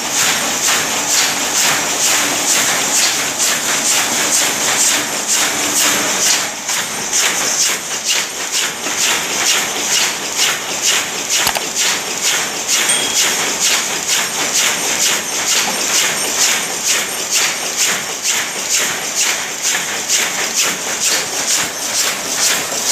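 Automatic wire-mesh loom weaving mosquito-screen mesh, running with a rapid, even clatter of a few strokes a second over a bright metallic hiss.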